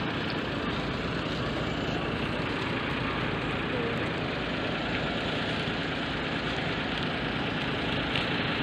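A vehicle's engine idling steadily, a low, even rumble.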